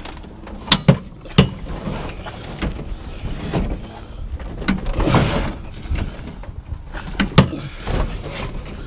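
Heavy metal barbecue grill being shoved and dragged onto a trailer: sharp metal clanks, three early on and a loud one near the end, with scraping and rumbling in between.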